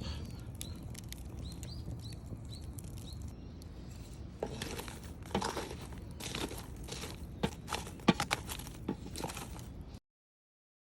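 Bamboo burning in a campfire, crackling with irregular sharp pops that come thicker from about four seconds in. A few short bird chirps early on; the sound cuts off suddenly near the end.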